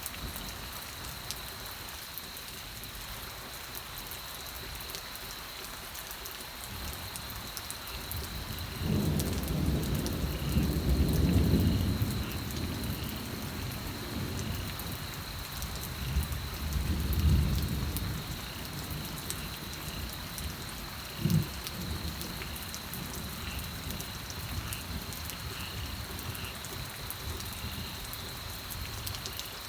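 Steady rain with thunder: a long low rumble about nine seconds in, a shorter one around sixteen seconds, and a brief sharp clap a little after twenty-one seconds.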